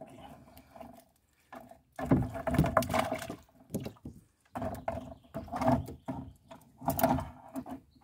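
Wire-mesh fish trap knocking and rattling against a rowboat's hull in three bouts of clatter, the first about two seconds in, as the trap is handled over the side.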